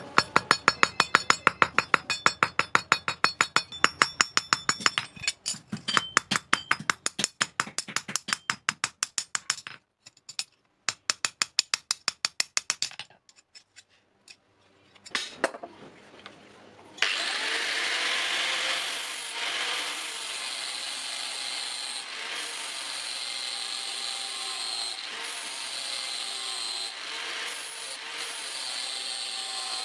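Rapid light hammer blows on a steel rivet against an anvil, several a second with short breaks, peening over the pivot rivet that joins the two blades of a pair of scissors; they stop about 13 seconds in. About 17 seconds in, an angle grinder starts and runs steadily, grinding the scissor blade.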